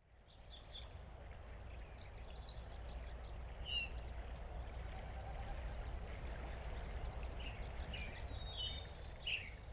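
Several birds chirping, with rapid trills and a few short whistled notes, over a steady low rumble; the ambience fades in over the first second.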